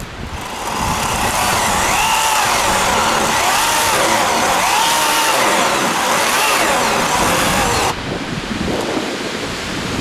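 Two-stroke chainsaw running at high revs, its pitch dipping and rising as it cuts into a tree, then cutting off suddenly about eight seconds in. Wind buffets the microphone afterwards.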